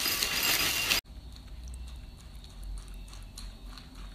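Dry chocolate and vanilla cereal balls pouring into a plastic bowl in a steady rush that cuts off suddenly about a second in. Then milk is poured over the cereal, much quieter, with faint scattered ticks.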